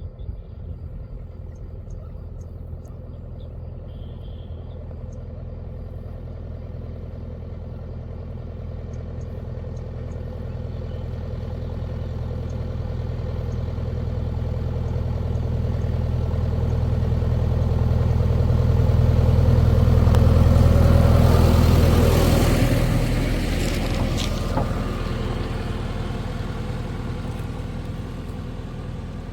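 Diesel engine of a heavy machine running steadily, growing louder as it comes closer, loudest about 21 seconds in, then fading as it moves away.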